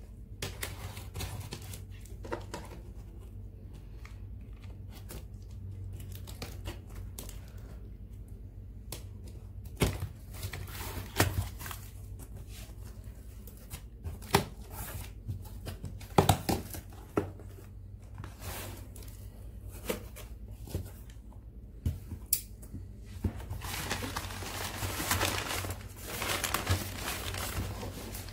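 Cardboard shipping box being cut open and unpacked by hand: scattered knocks and scrapes of the cardboard and packing tape tearing, then crumpled paper packing rustling and crinkling for the last few seconds.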